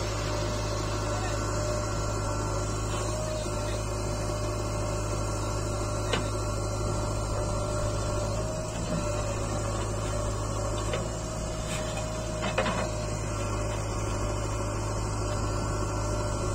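JCB backhoe loader's diesel engine running steadily as the backhoe digs and loads soil, with a couple of short sharp clicks.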